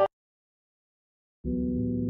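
A piano music track cuts off abruptly. After about a second and a half of dead silence, a new music track begins with low, steady sustained tones.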